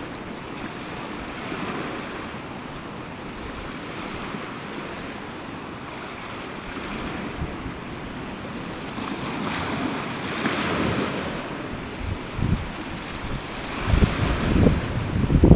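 Sea waves breaking and washing over a pebble shore, swelling about two-thirds of the way through, with gusts of wind rumbling on the microphone near the end.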